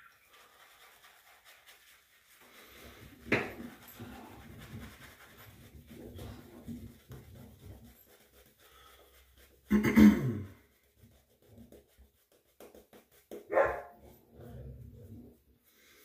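Pet dog barking: three separate barks, a short one a few seconds in, the loudest about ten seconds in with a falling pitch, and another a few seconds later.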